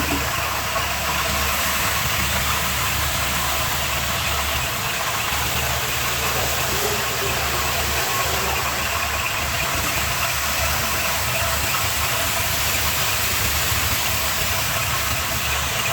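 Pressure washer pump running steadily while its water jet hisses, rinsing soap off a car's engine bay.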